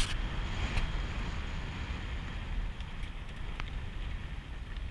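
Vehicle driving along a dirt road: a steady low rumble of engine and tyres on the dirt, with a sharp click right at the start and a few faint ticks later.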